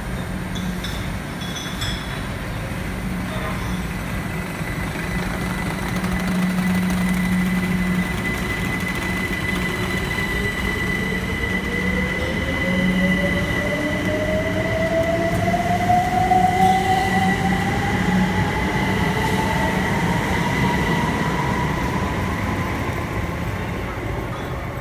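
Stansted Express Class 379 Electrostar electric multiple unit pulling out of the platform: a steady hum, then a whine from its traction motors rising smoothly in pitch as it accelerates away, with a steady high tone above.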